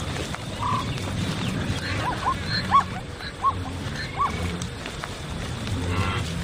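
Mixed herd of zebras and wildebeest running: a steady rumble of hooves with low grunts, and a run of five short high calls in the middle.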